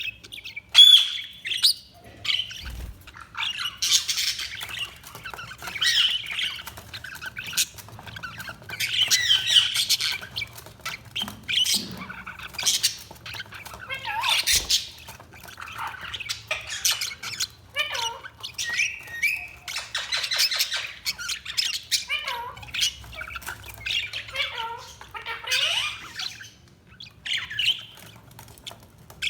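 Budgerigars chirping, squawking and warbling in a constant, overlapping chatter.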